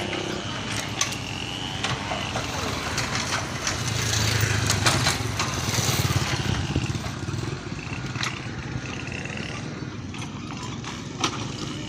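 An engine running steadily, louder for a couple of seconds near the middle, with scattered sharp knocks and clicks.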